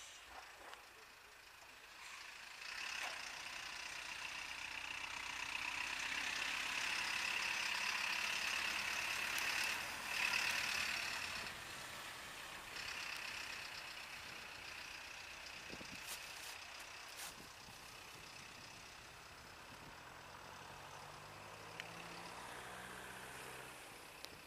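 Star/MAN 12.185 fire engine driving past: its engine and tyre noise grow louder to a peak about ten seconds in, then fade as it moves away.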